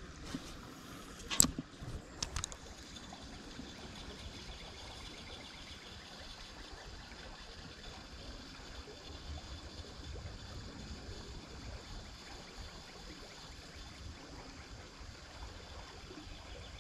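Creek water running with a steady, faint trickle, broken by two sharp clicks about one and two seconds in.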